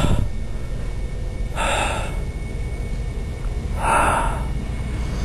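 Three heavy, breathy gasps, roughly two seconds apart, over a low steady rumble.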